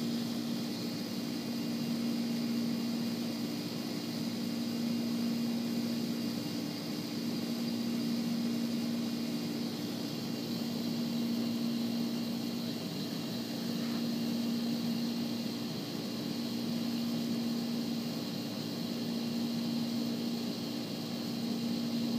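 A steady low hum that swells and fades every few seconds, over a faint even hiss.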